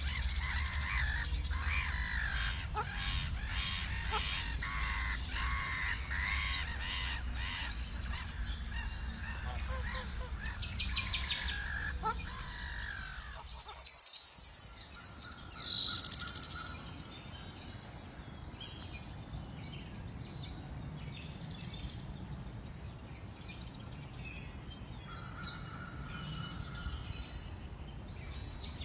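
Several songbirds chirping and trilling together over a low rumbling background. About halfway through it cuts to a different recording: one loud falling whistled call, then sparser chirps and a burst of fast trills.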